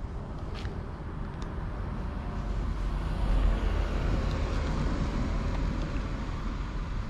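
A car passing on the street, its tyre and engine noise swelling to a peak about three to four seconds in and then fading, over a low rumble.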